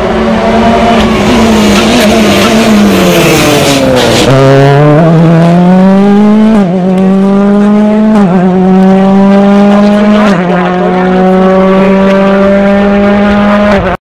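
Ford Fiesta RRC rally car's turbocharged 1.6-litre four-cylinder engine at racing pace: the note falls as it brakes and downshifts for a corner, with a few sharp cracks, then about four seconds in it accelerates hard away, the pitch climbing and dropping back at each of three upshifts.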